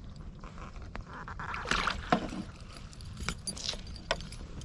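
Handling noise in a kayak: scattered clicks, knocks and rustling, busiest about two seconds in, over a steady low rumble.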